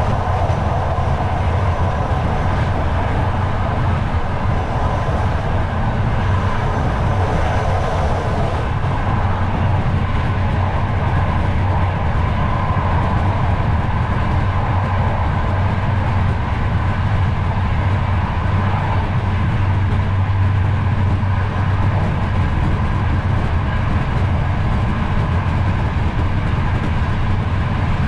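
Steady running noise of a moving Trenitalia Intercity Notte passenger coach: wheels on rails and a low hum, heard from inside the compartment.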